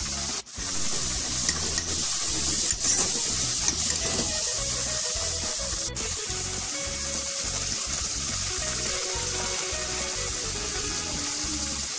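Onion-tomato masala sizzling in oil in a kadhai, with water poured in from a bottle partway through, splashing into the hot pan.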